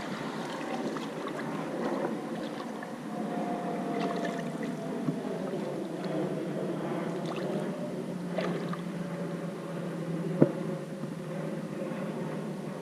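Creek water running and trickling, with one sharp click about ten seconds in.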